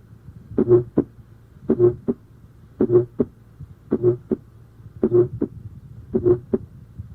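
Recorded heart sounds with an innocent systolic murmur of musical quality, six beats about a second apart. Each beat is a short, steady, medium-pitched tone right after the first heart sound, ending before a sharp second heart sound. There are no extra sounds, as in a functional murmur without organic heart disease.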